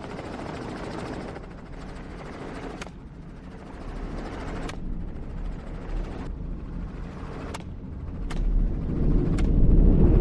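Helicopter running steadily with a low engine and rotor hum. Several sharp cracks come at irregular intervals, and a heavier low rumble swells near the end.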